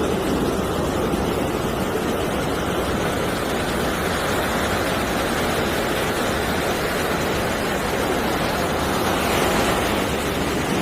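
Steady rush of ocean surf, with wind buffeting the microphone, swelling slightly near the end.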